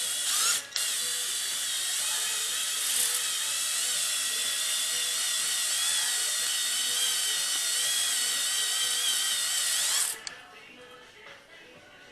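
A high-speed handheld power tool running steadily with a whine that wavers in pitch as its load changes, cutting off sharply about ten seconds in.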